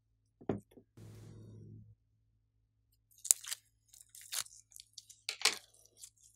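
Slime and clay handled with the fingers, giving a soft thud, then a muffled squish. After that comes a run of sharp, sticky crackles and clicks as the glitter slime and clay are squeezed and pulled apart.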